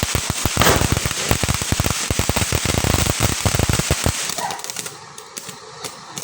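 Golden Rooster three-minute fountain firework spraying and crackling with a fast, dense run of pops, which stops abruptly about four seconds in as the fountain burns out.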